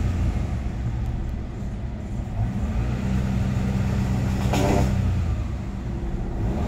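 Daihatsu Xenia 1.0's three-cylinder engine revved with the throttle held open while the car stands still, hanging around 3000 rpm and climbing no higher: the engine is stuck at a 3000 rpm ceiling, the fault being diagnosed.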